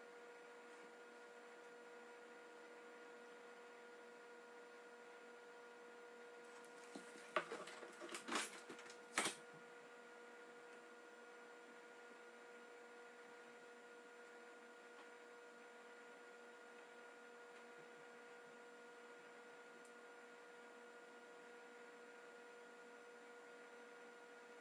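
Faint steady electrical hum with a few overtones. About seven to nine seconds in, a short run of sharp clicks and rustles, the last one the loudest.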